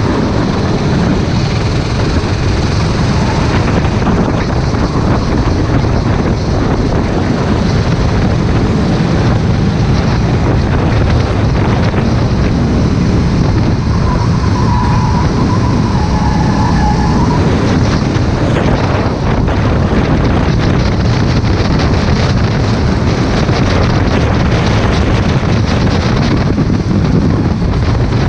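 Racing kart's engine running at speed under the onboard camera, steady throughout, with wind buffeting the microphone. A faint whine rises out of it briefly about halfway through.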